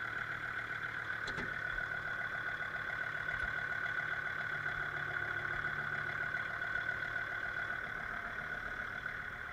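Kubota L3750 tractor's diesel engine running steadily with a constant whine, and a single click about a second in.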